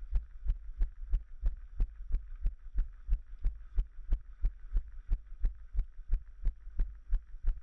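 Running footfalls of the runner carrying the camera, thudding evenly about three times a second as each stride jolts the body-mounted camera, over a faint steady hiss.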